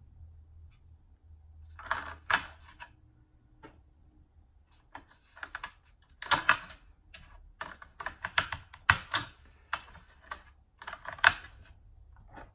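Batteries being pushed into the plastic battery compartment of an Ozeri ProMax 560 bathroom scale: an irregular run of sharp clicks and snaps, the loudest about halfway through and near the end.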